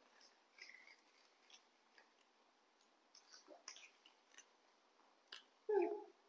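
Faint, scattered small crunches and clicks of young monkeys biting and chewing crispy snack sticks, with one brief louder sound near the end.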